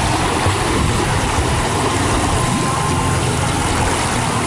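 Water splashing and churning as several swimmers kick and wade through a swimming pool, a steady wash of noise.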